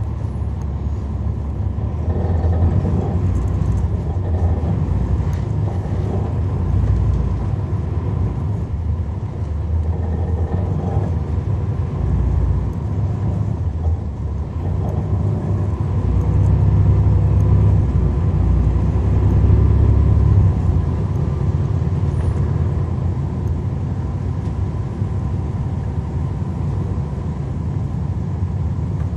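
Cummins ISL9 diesel engine of a 2011 NABI 40-foot transit bus, heard from inside the bus while it runs and rides. The engine grows louder at about two seconds and again from about 16 to 21 seconds, then settles.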